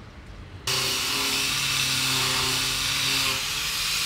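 Electric miter saw running and cutting wood: a loud steady hiss over a motor hum that starts abruptly just under a second in.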